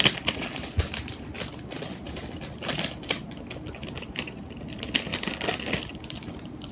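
Plastic packaging of a toy squishy crinkling and crackling in quick, irregular clicks as it is handled, thicker in the first few seconds and sparser after.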